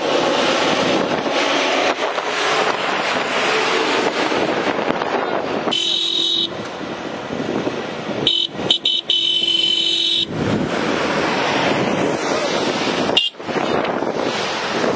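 A vehicle horn honks twice: a short blast about six seconds in and a longer one of about two seconds soon after. Under it, a convoy of pickup trucks passes with heavy wind noise on the microphone.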